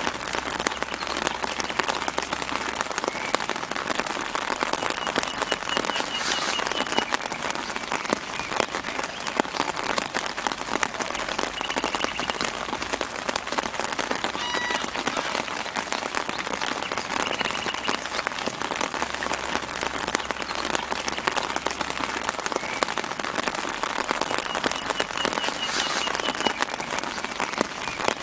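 Gentle rain falling steadily on leaves and the ground: a dense, even spread of many small drops. A few faint bird chirps come through in the background now and then.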